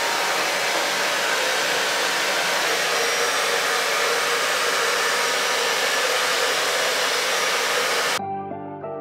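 DevaCurl DevaDryer hair dryer with a hand-shaped diffuser attachment, running with a steady rushing hiss. It cuts off abruptly about eight seconds in.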